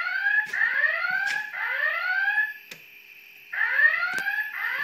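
EST speaker strobe sounding a fire alarm whoop tone: rising pitch sweeps about a second long in groups of three, with a pause of about a second before the next group begins. Faint clicks are scattered through it.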